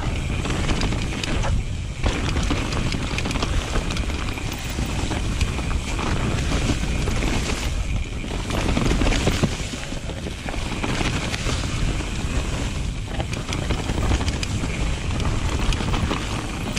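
Mountain bike riding fast down a rough dirt trail: wind buffets the camera microphone over a steady rumble and rattle of tyres and bike on the ground.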